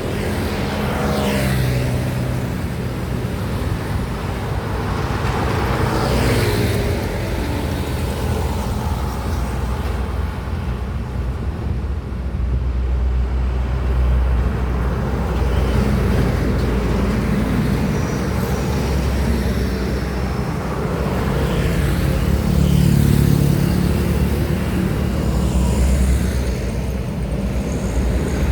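Busy highway traffic: trucks and other vehicles driving past one after another, with engine rumble and tyre noise. Several pass close enough for their engine note to swell and then slide away.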